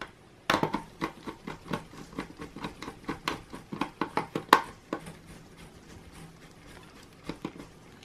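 Small screwdriver turning a screw in a Dell Latitude E6410 laptop's base: a quick run of sharp clicks, about four or five a second, for about four seconds, then a couple more clicks near the end.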